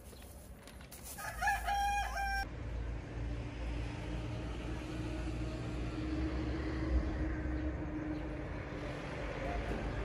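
A rooster crows once, about a second in, a call lasting roughly a second. Then a steady low rumble with a faint steady hum takes over for the rest.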